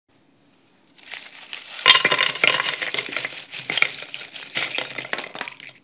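Crispy fried potato sticks tumbling off one plate onto another, a dense run of light crisp clatters and crackles. It starts about a second in, is loudest about two seconds in, and thins out near the end.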